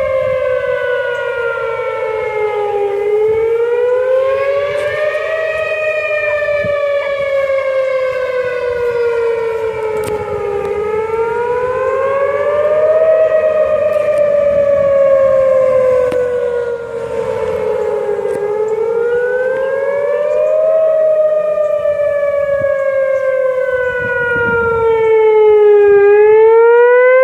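Outdoor tornado warning siren wailing, its pitch gliding slowly up over a couple of seconds and then down over about five, over and over.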